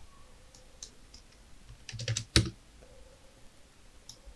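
Computer keyboard keys being pressed: a few scattered, quiet clicks, with a quick cluster about two seconds in that holds the loudest click.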